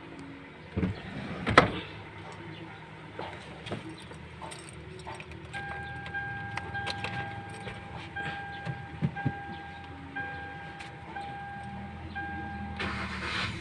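Keys jangling and a couple of sharp knocks, then a car's electronic warning chime sounding in repeated short pulses for about seven seconds. A burst of noise follows near the end.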